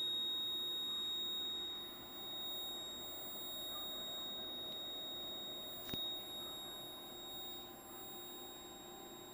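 Steady high-pitched electrical whine from a running homemade coil-driving circuit with hand-wound copper coils. One sharp click about six seconds in.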